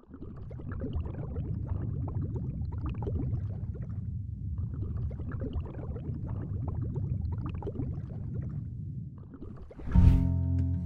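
Water gurgling and bubbling: a low churning with scattered small crackles that thins out briefly twice. Near the end a rising whoosh brings in steady guitar music.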